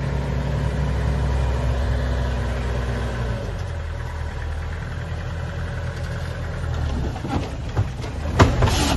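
Four-wheel-drive ute's engine running at low revs as the vehicle crawls down into a deep rut, its note dropping a little about three and a half seconds in. A few sharp knocks near the end.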